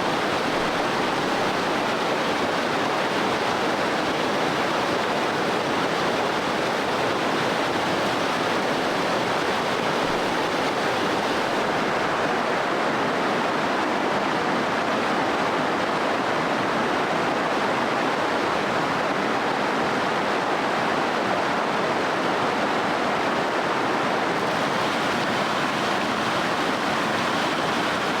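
Stream water running steadily, a constant rushing.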